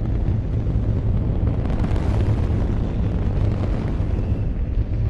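Saturn V S-IC first stage's five F-1 rocket engines firing on a test stand: a loud, steady, deep rumble with a faint crackle on top.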